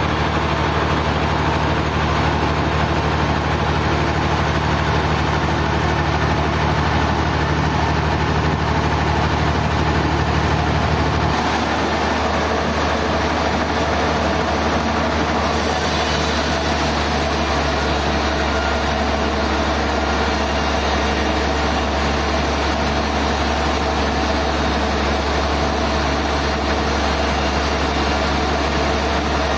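Sawmill machinery running steadily with a constant engine-like hum. The low hum shifts about eleven seconds in, and a higher hiss joins about four seconds later.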